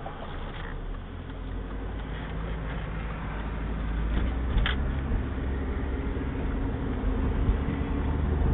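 Audi A3 convertible driving with the top down: a steady low engine hum under wind and road noise that grows steadily louder, with one short click about four and a half seconds in.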